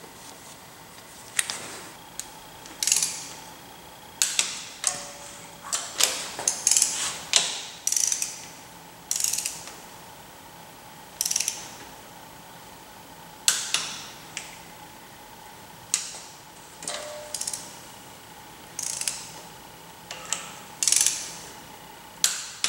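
Ratchet wrench clicking in about twenty short bursts of strokes, running down the nuts on the cylinder head studs of a Mitsubishi 4G63 engine.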